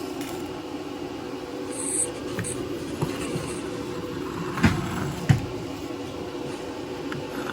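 Steady hum of an air-filter fan, with two sharp knocks a little past the middle and a few faint clicks, from work on an ash-clogged wood-burning furnace.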